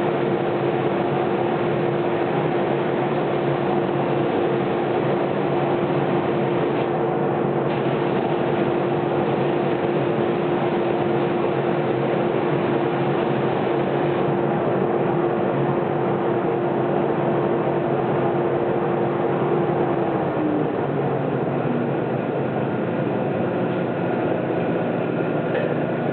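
Homemade lathe-powered drum thickness sander with its dust collection running: a steady machine whir with a constant hum. About twenty seconds in, the hum drops a little in pitch and settles lower.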